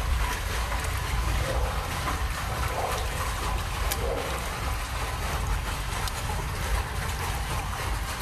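Water sheeting down over a dark surface: a steady splashing rush of flowing water with a low rumble underneath.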